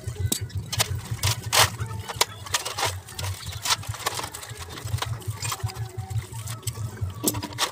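Tractor differential parts being scrubbed by hand in a metal basin of wash fluid: splashing and rubbing, with scattered sharp clinks and knocks of metal on metal, over a steady low hum.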